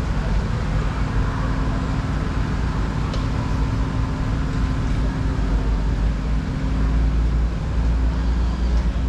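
A vehicle engine running at a steady idle, a low hum with a rumble that grows stronger about two-thirds of the way through.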